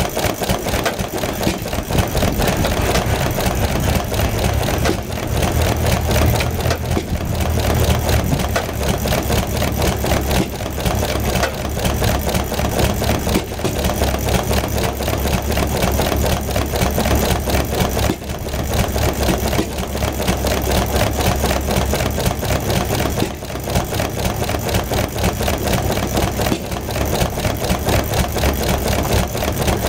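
McCormick-Deering Model M 1 1/2 HP single-cylinder hit-and-miss stationary engine running and ticking away. Its low beat swells and eases every few seconds as it fires and coasts.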